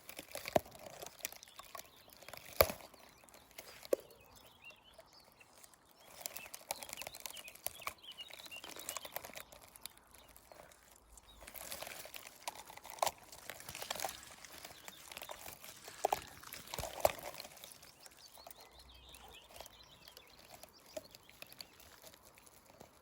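Quiet rustling of leaves and twigs with scattered small cracks and clicks, as a person shifts about in dense scrub, with faint birdsong in the background.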